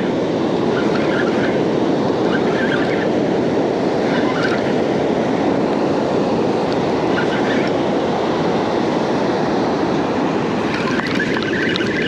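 Ocean surf breaking on the beach, a steady rushing noise that holds the same level throughout.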